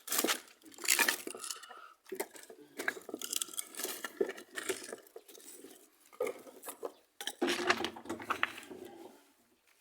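Dry sticks and kindling clattering and crackling in irregular runs of sharp clicks and knocks, breaking off abruptly twice.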